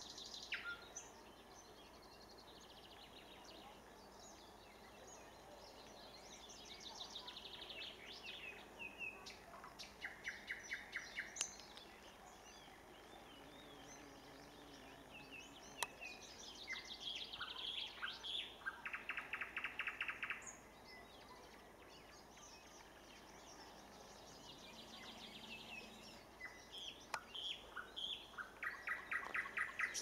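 Nightingale singing in short, varied phrases of whistles and fast trills. Several phrases end in a loud, dry rattle of rapidly repeated notes.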